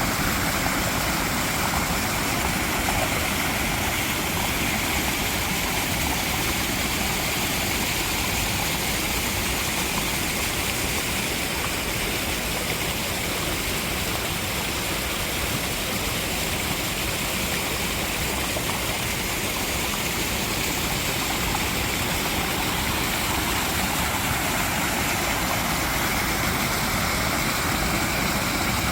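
Mountain valley stream flowing, a steady unbroken rush of water.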